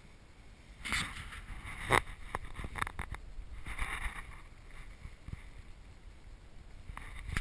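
Water splashing and sloshing against a kayak, with several sharp knocks, a quick cluster of them near the start and a single one near the end.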